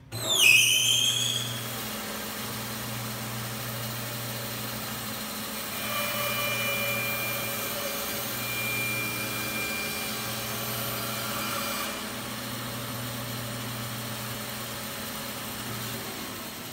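Laguna bandsaw switched on, starting with a sudden jump in level and a brief falling whine, then running steadily at full speed. From about six seconds in to about twelve the blade rips a board along the fence, adding a louder, higher cutting tone. After that it runs free again.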